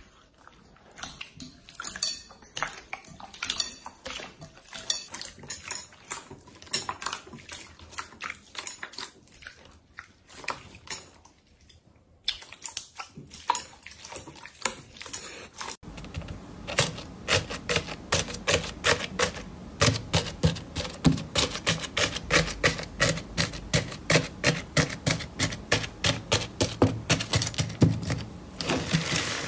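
Hands squeezing and squishing clear bead-filled slime in a glass bowl, giving irregular wet clicks and squelches. About 16 s in it changes to a denser, steady run of crackling pops as hands press a slime packed with white foam balls.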